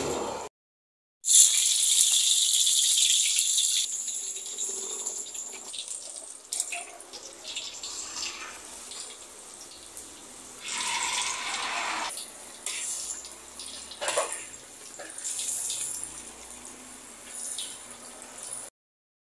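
Hot oil sizzling in an aluminium wok as battered fritters deep-fry, loudest over the first few seconds and again about eleven seconds in, with a few sharp clinks of a wire skimmer against the wok as pieces are lifted out.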